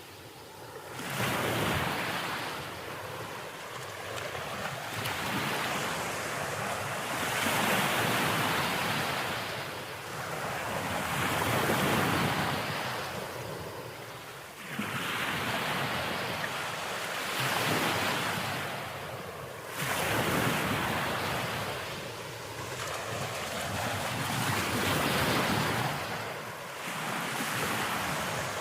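Sea waves washing onto a shore, the surf swelling and falling in surges every few seconds.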